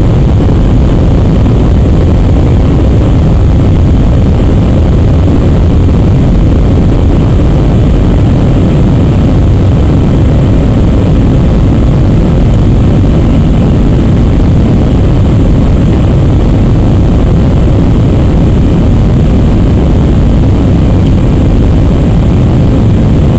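Steady, loud cabin noise inside an Airbus A319-100 climbing after takeoff: a deep, even rumble of the jet engines and airflow, with a faint high steady whine above it.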